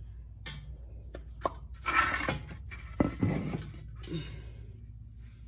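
Metal parts clanking and rattling as they are handled: a couple of sharp clanks and a scraping rattle, over a steady low hum.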